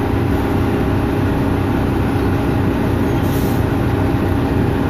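Crab boat's engine running at idle: a steady low rumble with a constant hum.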